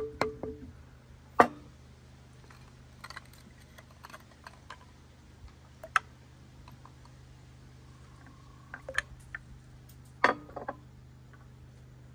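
Cookware and utensils being handled: scattered clicks and knocks, some with a short ring, the sharpest about a second and a half in and again near the end, over a low steady hum.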